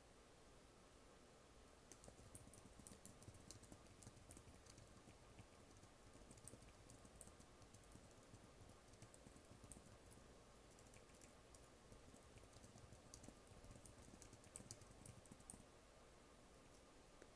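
Faint typing on a computer keyboard: a quick, uneven run of key taps starts about two seconds in and stops a couple of seconds before the end.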